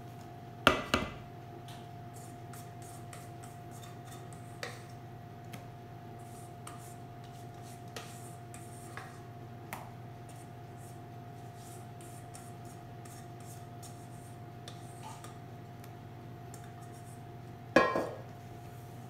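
Spatula scraping and tapping in a stainless steel mixing bowl while meringue is folded into cake batter, with two loud metallic clanks that ring briefly, about a second in and near the end. A steady hum runs underneath.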